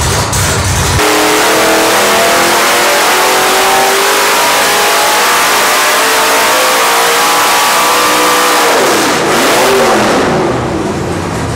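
Nelson Racing Engines LS V8 making a full-throttle pull on an engine dyno, loud and climbing steadily in revs toward about 7,000 rpm for some seven seconds. Near nine seconds in the throttle closes and the revs fall away, with one brief dip and rise before the engine quietens.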